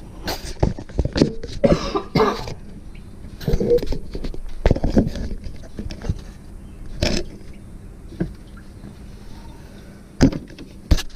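Scattered knocks, clicks and scrapes of hand work on a Jeep Cherokee XJ's cooling hoses, with a few short throaty vocal noises from the worker in the first few seconds.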